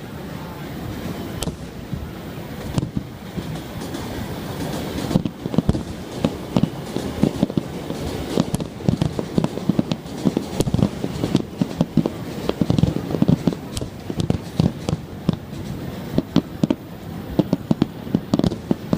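Aerial fireworks going off in a rapid barrage of shell bursts and bangs, thickening into near-continuous booms about five seconds in.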